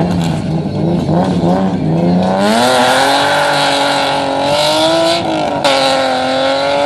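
Stunt car's engine running at low revs, then revving hard about two and a half seconds in and held high, with a hiss of tyre noise that suggests wheelspin; the revs dip briefly just past five and a half seconds.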